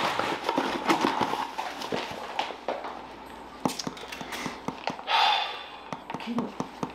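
Irregular light taps and knocks, with a short scraping rustle about five seconds in: people handling things and moving about a living room.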